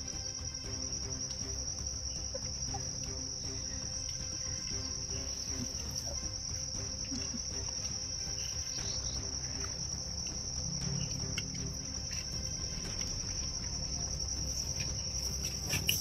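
Insects trilling in one steady, unbroken high-pitched drone, over a low background rumble.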